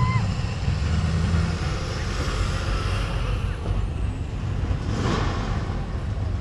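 Classic cars' engines rumbling as they drive slowly past, heaviest in the first second or so, with a short squeal right at the start. About five seconds in, the rush of a pickup towing a trailer passing close by swells up.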